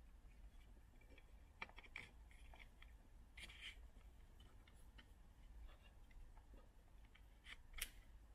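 Faint scattered clicks and rattles of plastic as a wiring connector and plastic dashboard trim pieces are handled and fitted by hand. A sharper click comes near the end.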